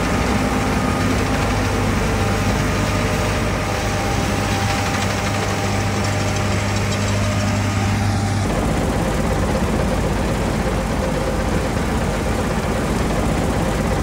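John Deere S785i combine harvester running steadily while cutting wheat: a continuous engine and machinery drone with a steady hum. The low hum drops away about eight and a half seconds in, and the rest of the drone carries on.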